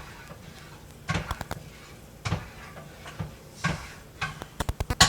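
A utensil knocking and scraping against a saucepan while thick bechamel sauce is stirred off the heat: scattered clacks, then a quick run of knocks near the end.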